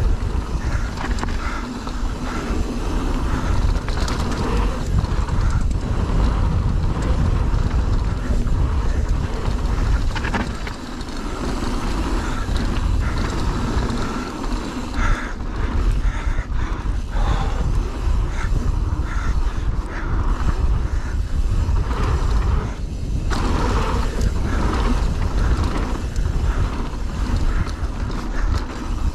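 Mountain bike descending a rough enduro trail at speed: tyres rumbling over dirt, roots and rocks, with constant clattering knocks and rattles from the bike.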